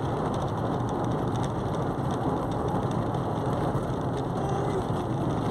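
Car driving on a paved road, heard from inside the cabin: a steady mix of engine and tyre noise.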